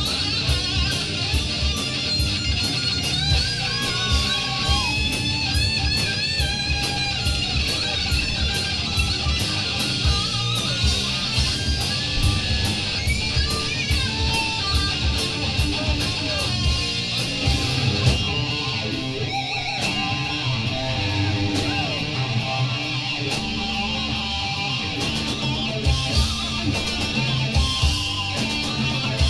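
Heavy metal band playing an instrumental break: electric guitar lead with bent, gliding notes over strummed rhythm guitar, bass and steady drums with cymbal hits.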